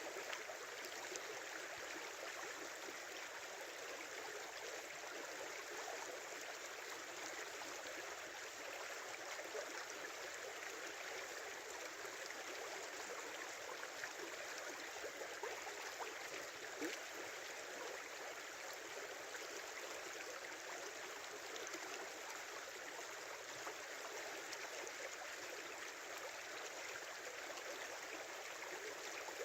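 Small river running steadily over shallows, an even babbling rush of water.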